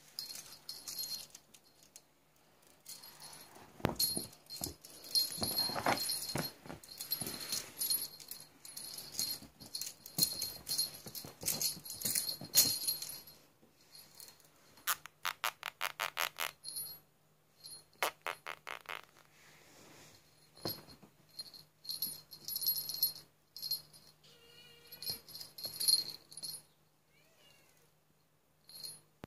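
A cat wand toy rattling and jingling in repeated bursts as a kitten pounces on it and bats it with its paws, with quiet gaps between. About halfway through comes a quick run of even clicks.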